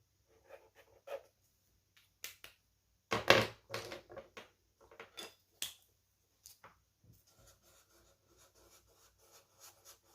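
Felt-tip marker drawing lines on a craft puppet: short scratchy strokes and small handling clicks, with one louder knock about three seconds in.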